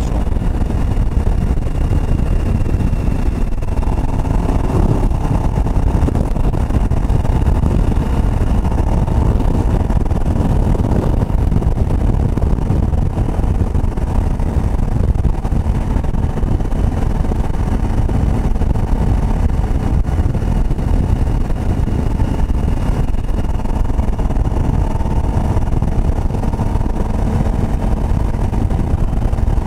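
Motorcycle riding at a steady cruise, its engine running evenly under a constant rush of wind noise on the microphone.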